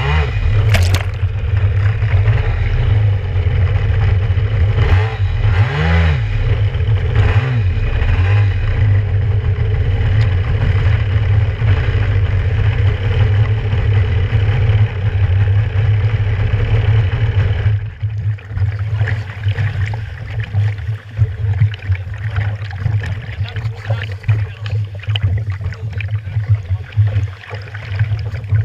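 Kawasaki 650SX stand-up jet ski's two-stroke twin engine running hard at speed, its pitch rising and falling with the throttle over the first several seconds, with water rushing past the hull. About two-thirds of the way through the engine falls away and water splashing and sloshing against the hull take over.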